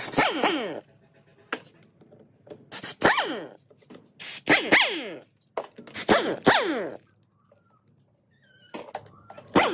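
Impact wrench undoing the cover-plate bolts of an old gear reducer in several short bursts, each hammering briefly and then spinning down with a falling whine, with a few single sharp clicks between them.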